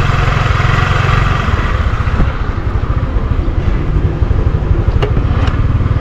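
Small motor scooter engine running as it is ridden slowly, with a steady low putter; it is somewhat louder and brighter for the first two seconds, then eases. Two light clicks near the end.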